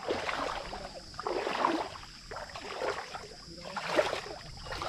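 Shallow muddy creek water splashing and sloshing in irregular bursts, with the loudest splash about four seconds in.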